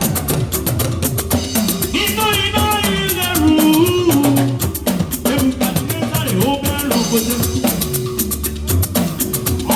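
Live band music with a steady drum and shaker beat, a moving bass line, and a high melodic lead that comes in about two seconds in and again near the end.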